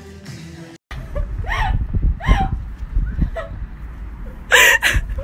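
Background music that cuts off within the first second. Then short voice sounds and a laugh over a steady low rumble, the laugh loudest near the end.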